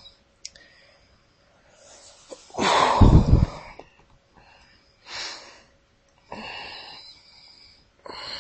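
A person crying: sniffles and shaky breaths, with one loud, heavy breath about three seconds in as the loudest sound, then several shorter breaths.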